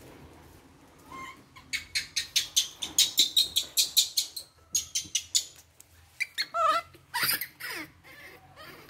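Baby monkey squeaking in a quick run of short, high chirps, about five a second, then a few whining cries that slide down in pitch near the end.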